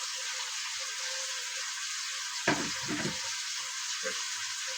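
Pot of red pea soup boiling on the stove, a steady bubbling hiss. About two and a half seconds in there is a single sharp knock.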